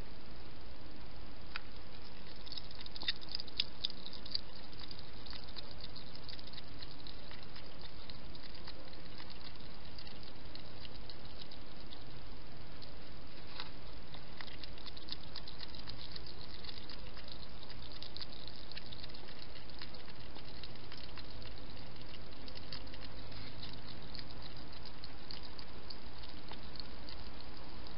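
Wild hedgehog feeding at a bowl: faint quick wet clicks and smacks of its mouth, over steady hiss. There is a short spell of clicking about three seconds in and a longer run from about halfway to near the end.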